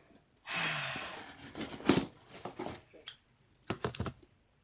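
Cardboard subscription box being opened by hand: a rasping tear about a second long, then a sharp knock and several smaller knocks and rustles as the box is handled.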